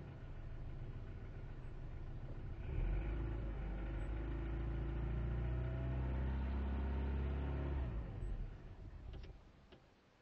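1998 Volkswagen Jetta engine running roughly, typical of its misfire and unstable idle. About three seconds in it is revved and held at a raised speed for several seconds. Then the revs fall away and the engine dies, the way it stalls when not given gas after revving cold.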